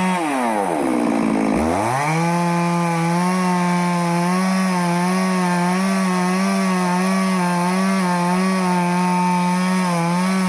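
Stihl two-stroke chainsaw running at high speed while cutting teak wood. In the first second and a half its pitch drops steeply and climbs back up. It then runs steadily, its pitch wavering slightly.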